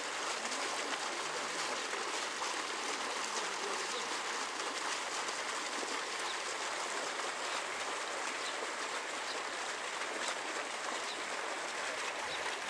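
Steady rush of running water splashing into a shallow pond.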